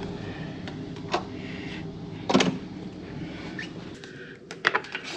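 Hotel room door handle and latch clicking as the door is opened, then a quick run of light clicks and taps near the end as a key card is pushed into the room's wall power slot, over a steady low hum.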